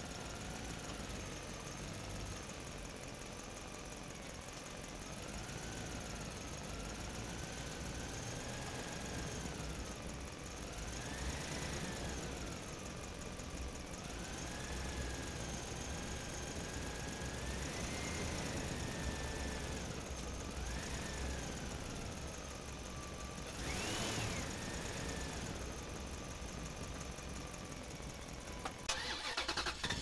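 A motor running with a low rumble, its pitch rising and falling every few seconds like revving, and a few sharp clicks near the end.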